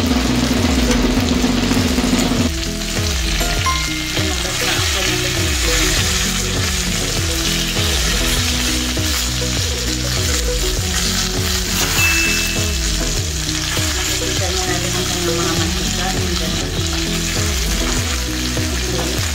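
Chicken pieces sizzling steadily in a stainless steel electric skillet, frying with no added oil, the lid off. Stainless tongs scrape and knock in the pan as the pieces are turned.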